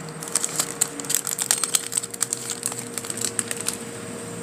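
Basketball card pack being opened by hand: the foil wrapper crinkles and the cards click and rustle against each other in a quick, irregular run of ticks that stops near the end. A faint steady hum runs underneath.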